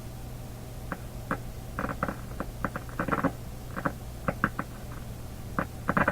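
Canadian General Electric G-40 tube radio warming up: a steady low mains hum from the set, with irregular crackling and popping starting about a second in. The hum is what the owner puts down to the power-supply filter capacitors.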